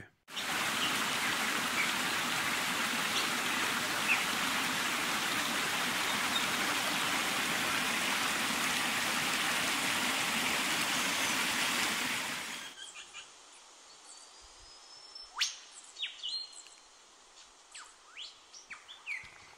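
Small rocky creek running and splashing, a steady rushing noise that stops abruptly about twelve seconds in. After that it is much quieter, with birds chirping and calling.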